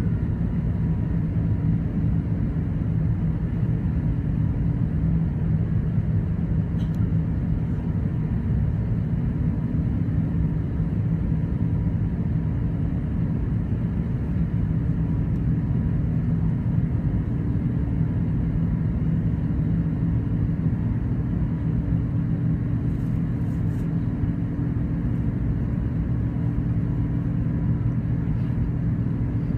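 Cabin noise of an Airbus A380 in its climb after takeoff: a steady, even drone of its Rolls-Royce Trent 900 turbofan engines, with a low hum heard through the cabin wall over the wing.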